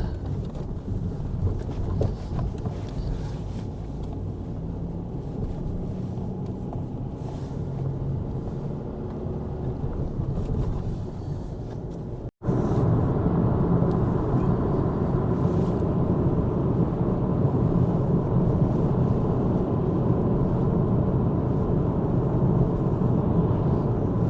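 Car cabin noise while driving: steady engine and tyre rumble. About halfway through it cuts out for an instant and comes back louder.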